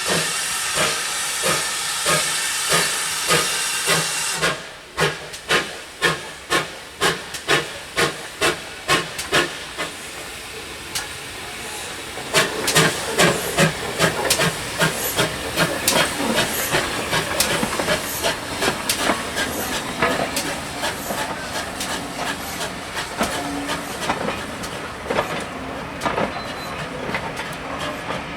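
Steam locomotive getting under way, its exhaust chuffing in a steady rhythm with a loud hiss of steam for the first few seconds. From about twelve seconds in the chuffs come louder and closer together.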